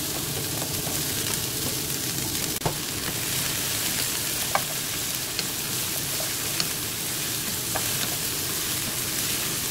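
Onion, garlic and broccoli sizzling in oil in a nonstick frying pan as they are stir-fried with a wooden spatula, with a few light knocks of the spatula against the pan.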